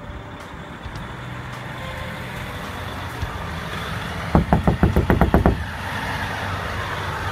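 A fist knocking rapidly on the cab door of a Volvo semi-truck, about ten quick blows in just over a second, a little past the middle, to wake the sleeping driver inside. A steady background hum runs underneath.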